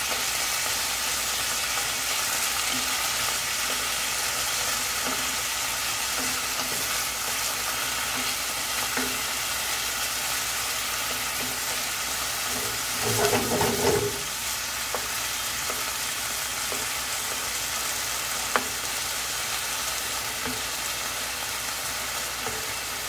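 Pieces of chicken breast sizzling steadily as they brown in hot oil in a nonstick pan, stirred and turned with a wooden spatula. A brief louder sound comes a little past halfway, and a single sharp tap of the spatula on the pan later on.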